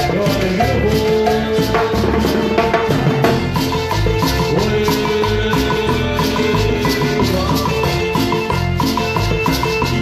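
Band playing Latin dance music, with shaker percussion, drums and a repeating melody line in a steady, even rhythm. There is no singing.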